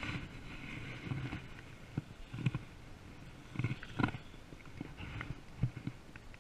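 Close handling noise as a yellow perch is lifted out of an ice-fishing hole: jacket rustle with several irregular dull knocks and taps, the loudest about four seconds in.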